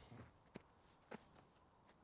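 Near silence broken by a few soft footsteps on dirt, spaced irregularly about half a second apart.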